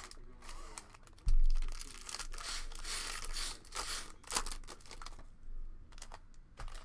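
Foil trading-card pack wrapper being torn open and crinkled by hand, with a crackle of irregular small clicks. A dull thump about a second in.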